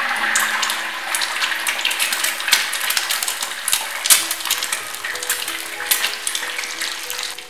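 Eggs frying in hot oil in a wok: a steady sizzle with frequent sharp crackles and spits.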